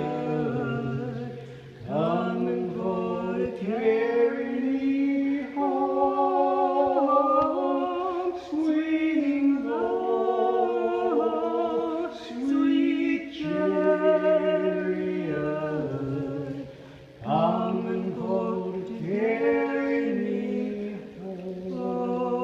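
A man and a woman singing a song together unaccompanied in a tunnel, in sustained phrases a few seconds long with short pauses for breath between them.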